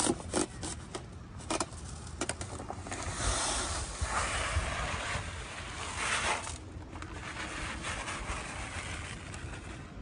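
A plastic fertilizer sack being handled with rustles and knocks, then granular compound fertilizer pouring into a Vicon broadcaster's hopper as a rushing hiss lasting about three seconds before it tails off.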